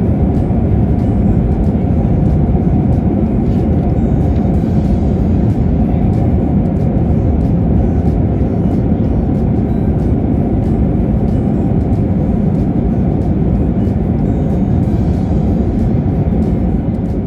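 Jet airliner cabin noise: the engines and rushing air make a steady, deep rumble with no distinct tones. It fades out near the end.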